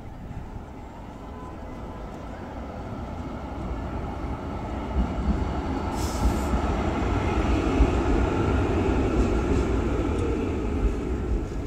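Oslo city tram rolling in on street rails, its low rumble and wheel noise growing louder as it pulls up close. A short hiss comes about six seconds in.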